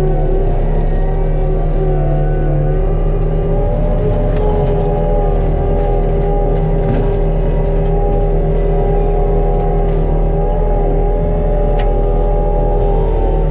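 ASV RT-75HD compact track loader's diesel engine running steadily at high revs, driving a Denis Cimaf 150D forestry mulcher head that is grinding brush and small trees.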